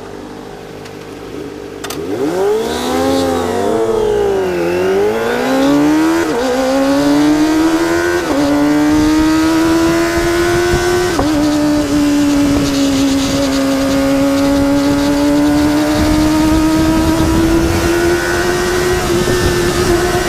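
Kawasaki ZX-25R's 250 cc inline-four through a DX Generation Sphere aftermarket exhaust: a short idle, a few revs up and down, then accelerating with upshifts about six, eight and eleven seconds in, each a sudden drop in pitch before it climbs again.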